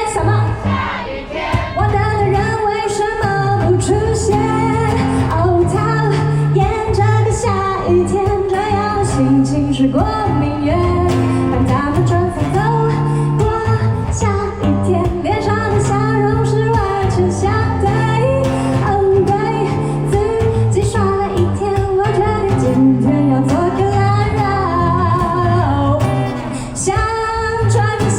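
A woman singing a Mandarin pop ballad over instrumental accompaniment.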